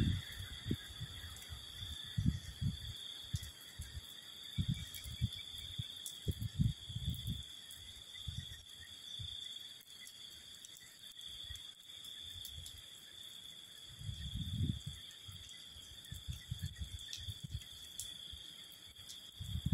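Steady high-pitched insect chirring from the waterside greenery. Irregular low rumbles of wind buffet the microphone, heaviest about two-thirds of the way through.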